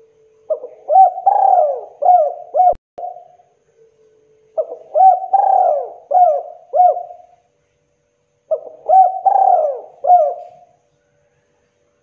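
Spotted dove (tekukur) cooing: three song phrases about four seconds apart, each a quick run of several arched, rising-and-falling coos.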